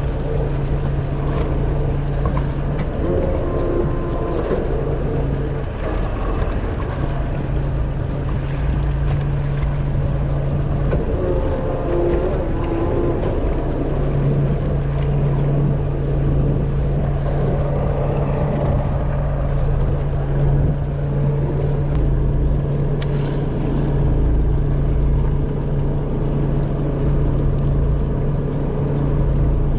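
Charter fishing boat's engine running with a steady low hum, under continuous water and wind noise.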